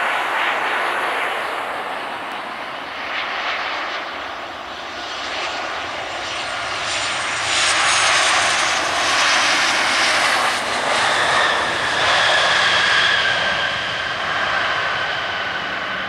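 Boeing 737-800's CFM56-7B jet engines on a landing: a broad rushing engine noise that grows loudest as the airliner passes close and touches down about eight seconds in, then a steady whine that slowly falls in pitch as it rolls out.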